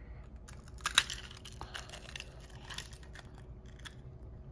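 Faint mouth sounds of a child tasting a frozen water ice pop: wet licking and scattered crunchy clicks, the loudest about a second in.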